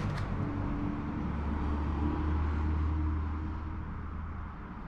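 Low engine rumble from a passing motor vehicle, with a faint steady hum above it; it swells about two seconds in and fades near the end.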